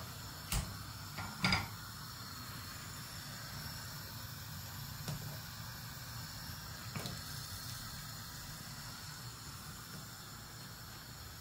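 Pan of water and egg whites boiling on a gas hob: a steady low bubbling hiss. A few light knocks come in the first two seconds and two fainter ones come later.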